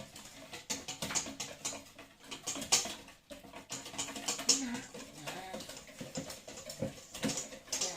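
Irregular light clicks and taps of a utensil against a bowl while pancake batter is being mixed.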